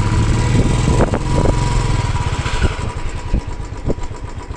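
Motorcycle engine idling in neutral, a steady low rumble with uneven thumps.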